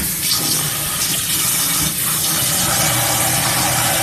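Kitchen sink tap turned on and running steadily, pouring water into a pot of dry rice to fill it for rinsing.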